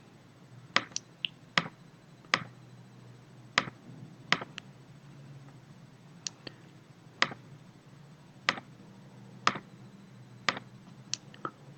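Computer mouse clicking: about fifteen single sharp clicks at irregular intervals, some close pairs, over a faint steady low hum.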